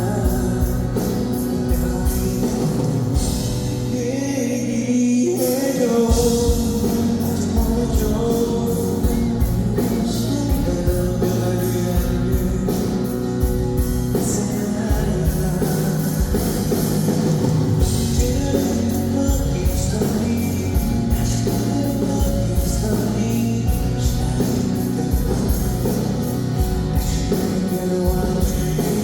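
A live rock-pop band with a male lead singer performs a song, with a steady drum beat and guitar. The drums drop out for about a second some four seconds in, then come back.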